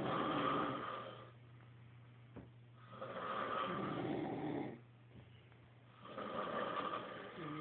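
Snoring: three long snores, each lasting about a second and a half to two seconds, coming about three seconds apart.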